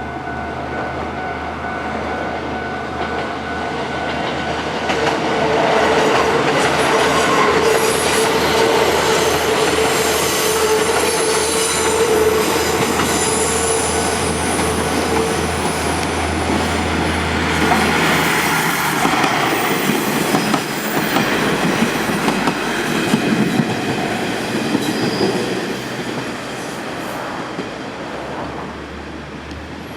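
JR Central KiHa 48 series diesel railcars passing close by over a level crossing: diesel engine running, wheels clicking over rail joints and squealing, over the steady ringing of the crossing's warning bells. The train grows loud about five seconds in and fades near the end.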